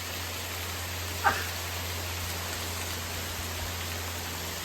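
Waterfall: a steady, even rush of falling water. About a second in, a brief high-pitched sound briefly rises above it.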